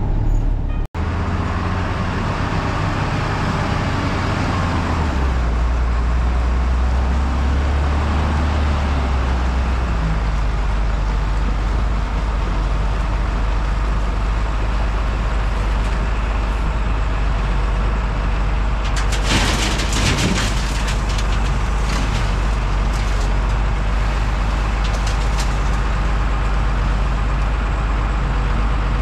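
Truck engine running under way while hauling gravel, a steady low drone whose pitch steps a few times in the first ten seconds as it shifts gear. About twenty seconds in there is a brief noisy hiss or rattle.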